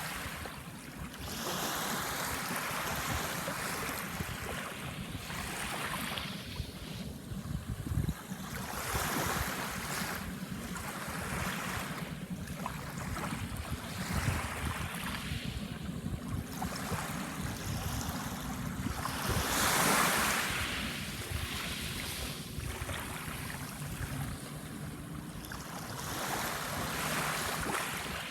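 Small waves washing in on a sandbar shore, each swell of surf rising and falling every few seconds, with the biggest one about two-thirds of the way through. Under it is a low, gusty rumble of wind on the iPad mini's microphone.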